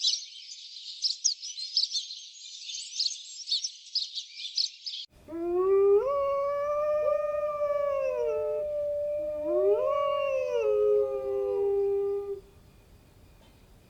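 Dense, high-pitched bird chirping that cuts off suddenly about five seconds in. Then a dog howls twice: each long howl rises, holds and falls, and the second ends about a second before the end.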